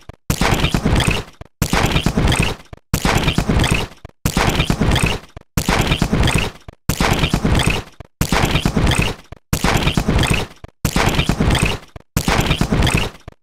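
Digital tech-glitch sound effect: bursts of stuttering, crackling static about a second long that fade and then cut to a brief silence, repeating about every 1.3 seconds.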